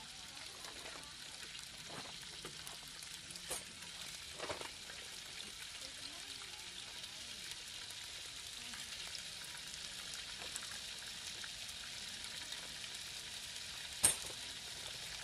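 Hot dogs sizzling in a frying pan on a camp stove: a steady frying hiss, with a few light knocks and one sharper click near the end.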